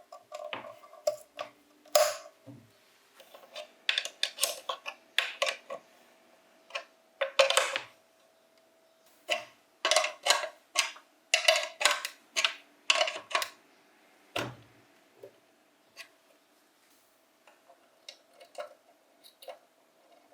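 Irregular clicks, taps and clinks of small metal parts being handled and fitted, in clusters with short pauses, as bench grinder parts are put back together.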